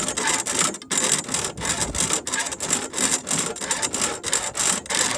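Small hand metal saw cutting aluminium stock with quick, even back-and-forth strokes, stopping right at the end.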